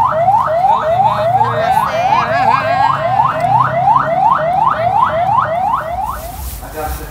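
Vehicle siren on a fast rising whoop, repeating about three times a second. A second wavering tone overlaps it briefly about two seconds in. The siren sounds the signal that the event is over, and fades near the end as a steady hiss comes in.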